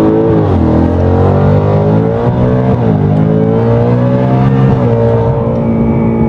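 Supercharged V8 of a Whipple Stage 3 Shelby Super Snake accelerating hard, heard inside the cabin. The revs climb and drop sharply at each upshift, about three times.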